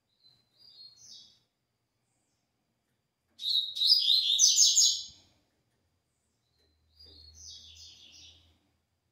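Caged double-collared seedeater (coleiro) singing its 'tui tui' song type in three high, quick phrases: a short quiet one at the start, the loudest about three and a half seconds in, and another near the end.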